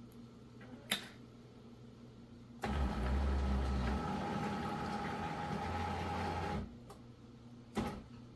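Terra Kaffe TK-02 super-automatic espresso machine priming: its internal pump runs with a low buzzing hum for about four seconds, framed by a sharp click before it starts and another after it stops.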